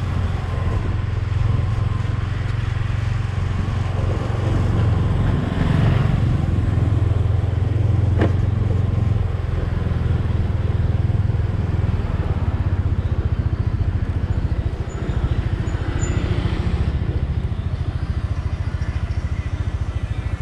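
Motor vehicle running along a street, heard from on board: a steady low engine and road rumble with an even haze of road noise. A single sharp click about eight seconds in.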